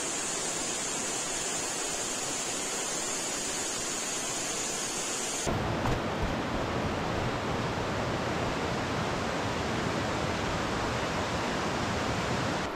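Steady rush of water, a continuous hiss with no distinct events. About five and a half seconds in it switches abruptly to a deeper, fuller rush.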